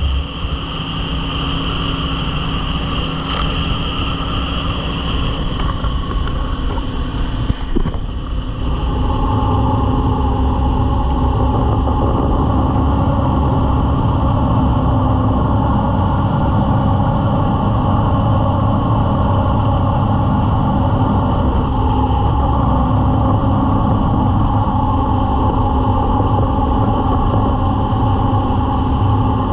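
Jet boat engine running at speed, with water rushing past the hull. The engine gets louder about eight and a half seconds in, then holds steady.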